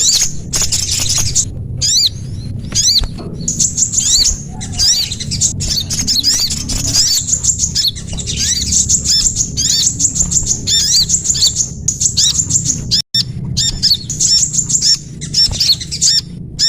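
Bird-lure call recording: small songbirds chirping in a fast, unbroken stream of short, high, thin notes, over a low steady hum. The sound cuts out for an instant about thirteen seconds in.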